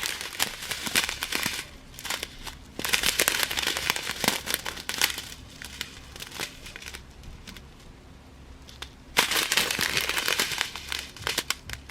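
Small plastic bags of diamond-painting drills crinkling as they are handled, in uneven stretches with a quieter spell in the middle.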